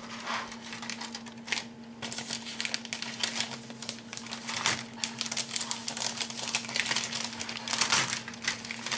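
Clear plastic bag crinkling and rustling in irregular crackles as plastic model-kit sprues are handled with it.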